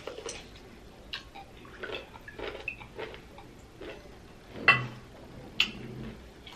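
Close-miked bite and chewing of a large whole pickle: irregular wet crunches, mouth clicks and smacks, with one louder crunch about two-thirds of the way in.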